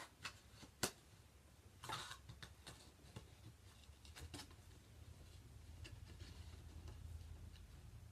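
Near silence with faint handling noises: a few sharp clicks in the first second, a short rustle about two seconds in, and two more clicks a little after four seconds, over a faint low hum.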